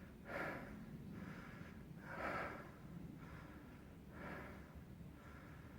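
A person breathing heavily close to the microphone, about one breath every two seconds, each a stronger puff followed by a softer one.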